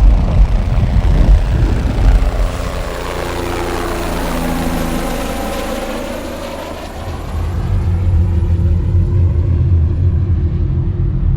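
Diesel engine of an M1078 LMTV military truck running with a heavy low rumble, dropping quieter through the middle and coming back loud from about seven seconds in.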